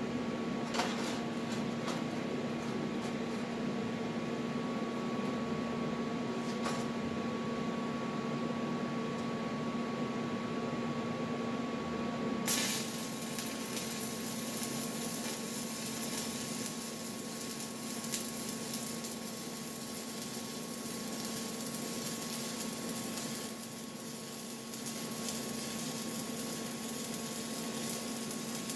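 Stick welding with a Vulcan 7018 electrode. A steady hum with a few sharp clicks, then about twelve seconds in a sharp strike, and the arc's hissing crackle carries on from there.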